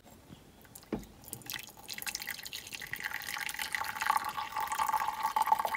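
Coffee poured from a thermos flask into a ceramic mug: a light knock about a second in, then a steady stream of liquid filling the mug from about two seconds in.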